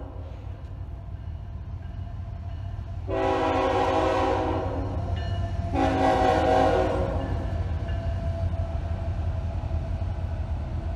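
Freight train diesel locomotive's air horn sounding two long blasts, about three seconds and six seconds in, over the steady low rumble of the train passing through a grade crossing.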